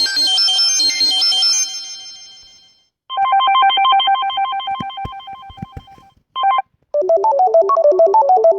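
Samsung Galaxy S5 ringtones previewed one after another: a high chiming melody that fades out about three seconds in, then after a short gap a fast repeating two-note tone that fades away, a brief snippet cut off, and a lower melody starting near the end.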